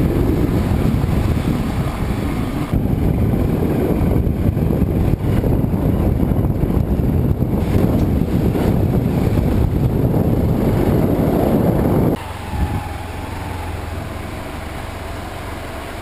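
Hero Xpulse 200 single-cylinder motorcycle engine running as the bike rides a rough dirt trail, under loud rushing rumble. About twelve seconds in, the rushing drops away sharply and the engine is left as a quieter steady low hum as the bike slows.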